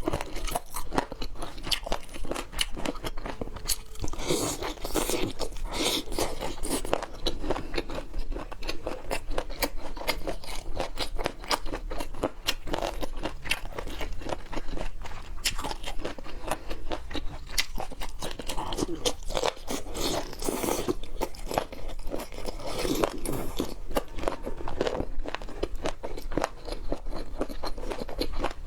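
A person chewing and biting crunchy food close to the microphone, with many small crisp crunches in quick succession.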